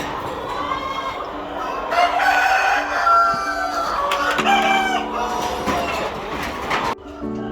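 Roosters crowing: several long, overlapping crows, over steady background music. The sound cuts off abruptly near the end.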